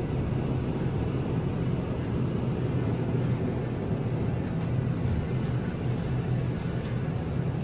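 Steady low hum and rumble of a supermarket's open refrigerated display cases, with no breaks or changes.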